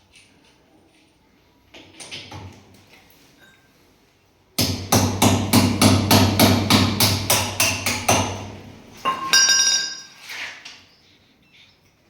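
A quick run of hammer blows on metal, about five a second for three and a half seconds, with a few lighter knocks before it and a short ringing metallic clink after it.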